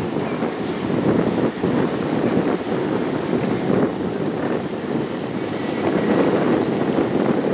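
Passenger speedboat passing close by at speed: its engine running and the water rushing off its hull, with wind buffeting the microphone throughout.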